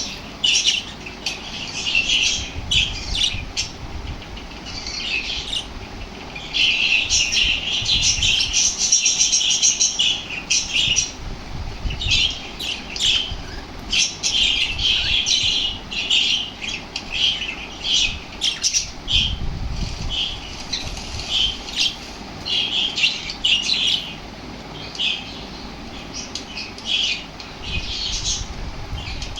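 Small pet parrots chirping and squawking in a fast, continuous chatter, with a few low thuds now and then.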